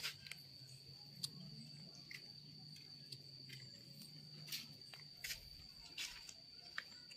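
Faint, steady high-pitched insect drone, with scattered soft clicks and rustles as a hand strokes a kitten's fur close to the microphone.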